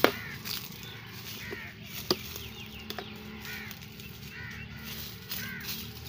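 Birds calling in short, arched, caw-like calls that repeat every second or two. Two sharp knocks stand out, one at the very start and the loudest about two seconds in.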